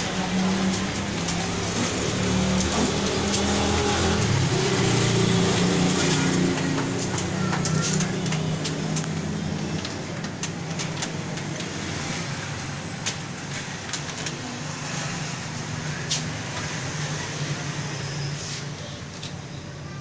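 Engine of a passing road vehicle, running steadily, swelling over the first several seconds and then fading away, with occasional sharp clicks over it.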